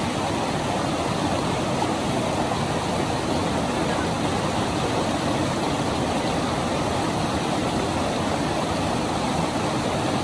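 A fast river, the Indus at Chilas, rushing steadily with an even, unbroken roar of water.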